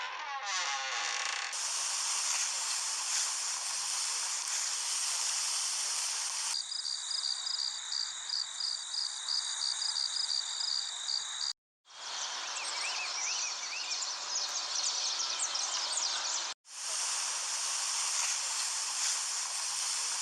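A run of short outdoor nature-ambience sound effects that change abruptly about every five seconds: a steady hiss, then a rapid, even, high insect-like chirping over it, then scattered high chirps, then the hiss again.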